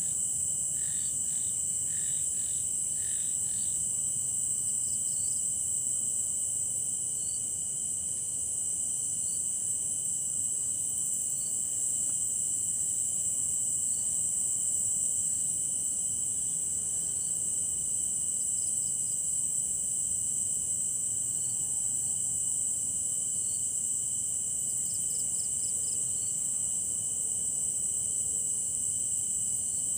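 Night insect chorus of crickets: a steady high-pitched trill with a second, lower steady tone under it, and short pulsed chirps from other insects, several in quick succession in the first few seconds and a few scattered later.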